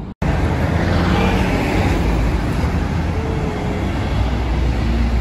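Road traffic on a multi-lane street: cars and vans going by in a steady, loud rumble, with a momentary dropout at the very start.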